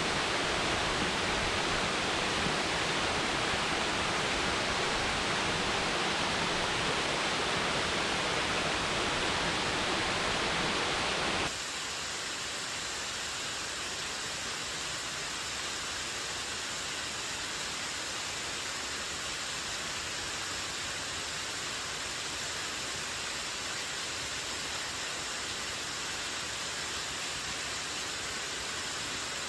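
Steady rush of a waterfall plunging into a sinkhole. Partway through it cuts abruptly to a quieter, thinner rush.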